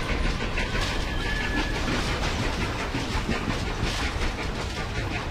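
HO-scale model train running past on its track, a steady rolling rumble with a rapid, regular clicking.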